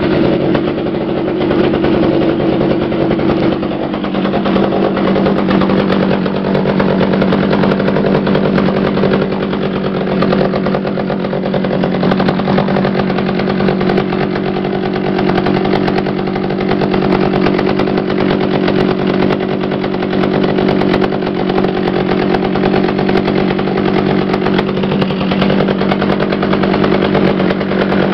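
Partner R18 two-stroke chainsaw engine running continuously, its note changing about four seconds in and then holding steady. It is running on a freshly cleaned carburettor that still needs fine tuning.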